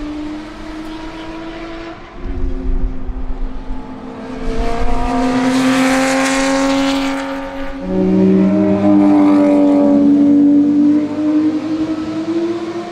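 Porsche 911 GT America's 4.0-litre flat-six race engine screaming at high revs as the car goes by on track. The engine note climbs and steps in pitch, with a sudden change about eight seconds in. It is loudest through the middle and later part.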